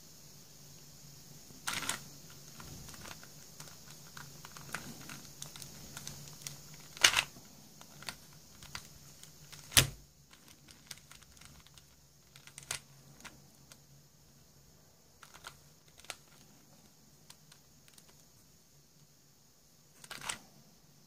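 Plastic layers of a hand-modded 4-layer Super Square Star twisty puzzle being turned by hand, clicking and clacking at irregular moments. The sharpest clack comes about ten seconds in, and the clicks grow sparser after that, over a faint steady hum.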